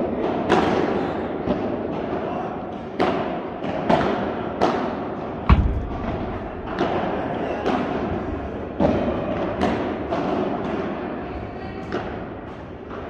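Padel ball being hit back and forth with solid padel rackets: a dozen or so sharp pops, roughly one a second, each ringing on in the echo of a large hall. The loudest, about five and a half seconds in, carries a deep thud.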